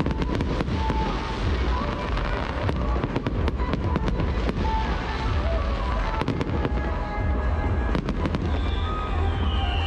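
Fireworks display: booming shell bursts under dense crackling, with a rapid run of sharp cracks in the middle. Near the end a falling whistle-like tone sounds.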